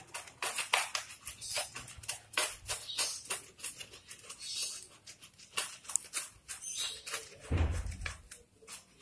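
Hands scrubbing soap lather into a boxer dog's wet coat: quick, irregular wet rubbing strokes, with one low thump near the end.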